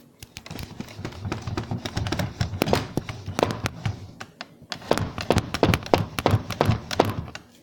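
Rapid, irregular tapping and thumping, many knocks a second, in two runs with a short pause a little past halfway.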